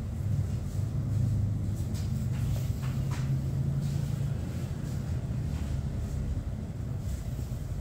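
Steady low rumble of background noise, with a few faint clicks or taps about two to three and a half seconds in.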